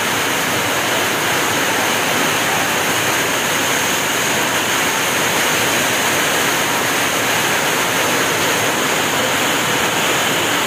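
Heavy rain pouring down in strong wind: a loud, even, unbroken hiss of rain on trees and flooded ground.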